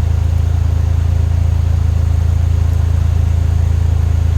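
A vehicle engine running steadily at a low, even hum, with no change in speed.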